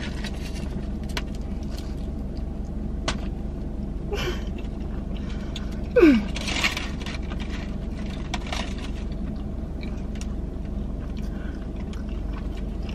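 Eating a fried mozzarella cheese stick: scattered small clicks and rustles of the foil wrapper and chewing, with a brief falling vocal sound at the bite about six seconds in. Under it runs the steady low hum of the car.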